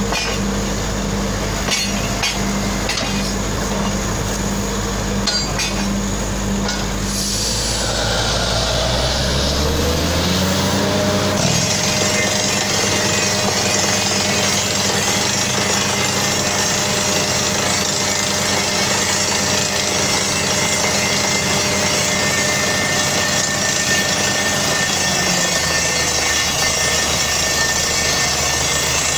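Truck-mounted borehole drilling rig running with compressed-air drilling. Its engine speeds up about ten seconds in, then holds a higher steady pitch with a strong air hiss as compressed air blasts dust and cuttings out of the hole. The engine slows back down a few seconds before the end.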